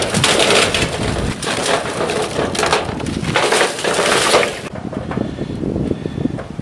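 Charcoal briquettes poured from a paper bag, clattering and rattling as they tumble onto a heap on top of and around a galvanized metal trash can. The pouring stops a little after four and a half seconds in.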